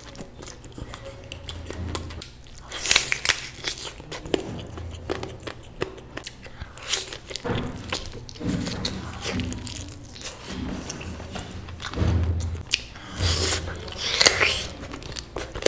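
A person eating cooked goat mutton: irregular biting and chewing with wet mouth clicks.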